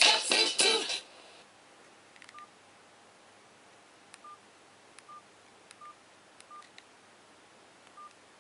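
Music cuts off about a second in; then about six short high keypad beeps from a CSL Euphoria Pro BB7500 mobile phone, each with a faint key click, as its buttons are pressed.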